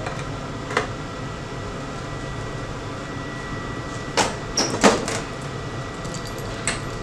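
Front door of a coffee vending machine being closed: a cluster of sharp knocks about four to five seconds in as it swings shut and latches, with a light click about a second in and another near the end. A steady room hum runs underneath.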